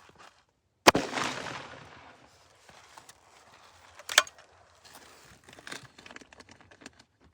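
.457 Tex Rex big-bore PCP air rifle firing about a second in: a loud sharp report with about a second of echo trailing off. A second, shorter sharp crack comes about three seconds later, followed by faint clicks and handling noise.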